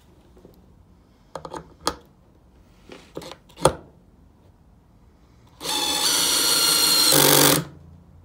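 DeWalt 12V Xtreme cordless screwdriver on clutch setting three, running for about two seconds as it drives a small screw into wood, then stopping. A few light clicks of the tool and bit being handled come before it.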